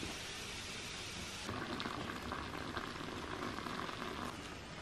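Hot water pouring from a samovar's tap into a glass teapot, the stream starting about a second and a half in and stopping near the end, over the steady hiss of the samovar's water on the boil.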